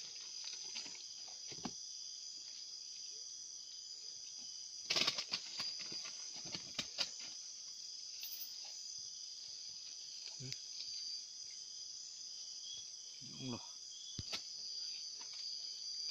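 Steady night chorus of crickets and other insects, a constant high-pitched drone, with a few sharp knocks and clicks about five, seven and fourteen seconds in.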